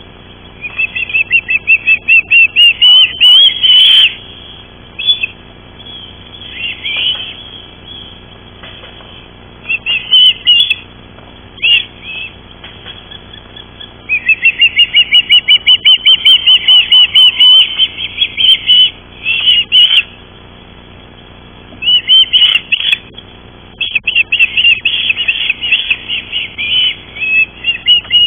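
Ospreys at the nest calling: loud series of rapid, high-pitched chirping whistles, about six notes a second, in several bursts of one to four seconds, the longest near the middle.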